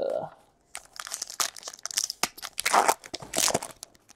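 A baseball card pack's wrapper being torn open and crinkled by hand, in irregular rustles and rips.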